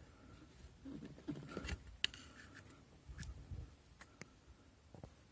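Faint scraping, rubbing and scattered sharp clicks from a seized common-rail diesel injector in a Mercedes C 220 CDI being rocked in its cylinder-head bore, working loose.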